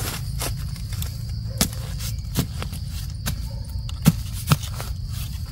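A handful of sharp snaps and crackles at uneven intervals, the loudest two about four seconds in, over a steady high insect drone and a low rumble.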